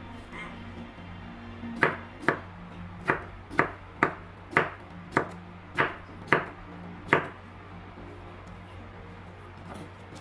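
Knife chopping on a cutting board: about ten sharp chops, roughly two a second, stopping about seven seconds in, over a steady low hum.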